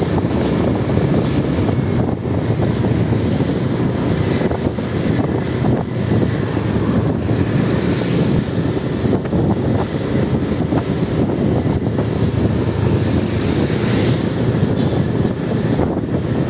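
Motorbike ride: the bike's small engine runs steadily under a constant rush of wind and road noise, one even drone.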